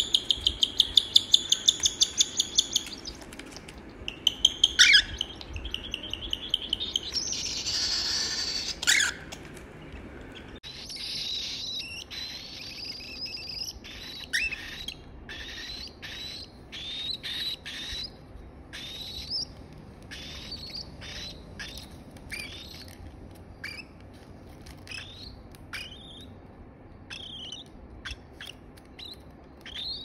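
Baby cockatiel chicks calling. In the first few seconds there is a rapid, rhythmic run of food-begging calls of the kind chicks make while being hand-fed, and a hiss lasting about two seconds follows. After that come scattered short high chirps, some rising and some falling in pitch.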